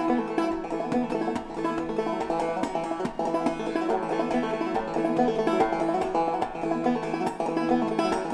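Instrumental old-time string-band music led by a fast-picked banjo, a rapid run of plucked notes with no singing.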